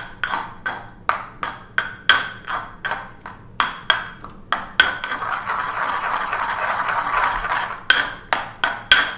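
Ceramic mortar and pestle grinding sorrel and roasted garlic into pesto: quick knocks of the pestle against the bowl, about three a second, then a few seconds of steady circular grinding about five seconds in, then knocking again near the end.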